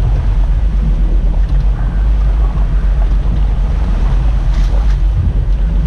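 Boat under way: a steady low rumble with wind buffeting the microphone.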